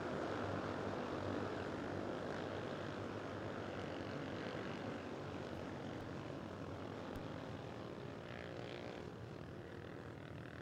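A pack of Honda CB 300R single-cylinder motorcycles droning along at reduced pace under the safety car. The engine noise slowly fades.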